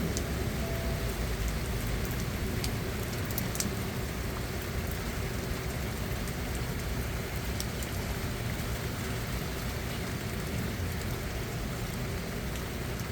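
Steady rain falling, with a few sharp ticks of drops hitting close by in the first few seconds.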